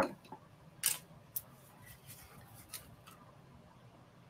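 Light clicks and taps of a plastic nail tip and nail-art tool being handled and set down on a desk: one sharp click at the start, then a few faint scattered ticks.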